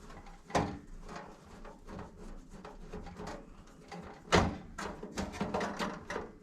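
Scattered clicks and knocks of a screwdriver working the last screw out of a range hood's sheet-metal panel. There is a sharp knock about half a second in, a louder one just past four seconds, and then a quick run of clicks.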